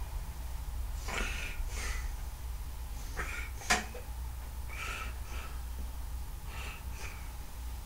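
An animal's short harsh calls, coming in pairs about every one and a half seconds, with a single sharp click about halfway through.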